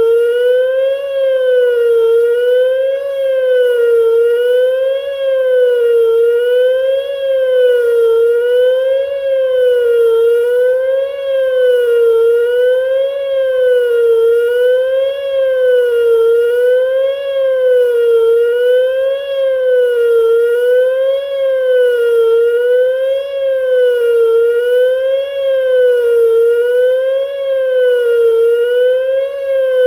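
Whelen WPS 2910 electronic outdoor warning siren sounding the attack signal: a loud wavering wail whose pitch rises and falls evenly about once every two seconds.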